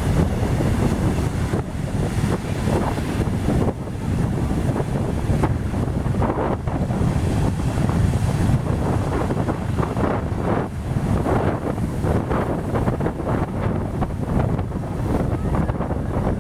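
Strong wind buffeting the microphone over the rush of large waves, in irregular gusts.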